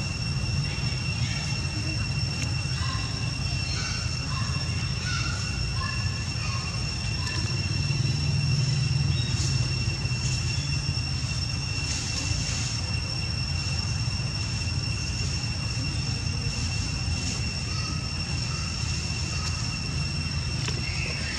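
Steady outdoor background: a low rumble throughout that swells a little about eight seconds in, over a constant high-pitched whine. A few faint short chirps come in the first several seconds.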